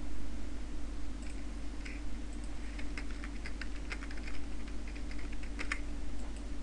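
Computer keyboard being typed on: quick, irregular key clicks starting about a second in and bunching up toward the end, over a steady low hum.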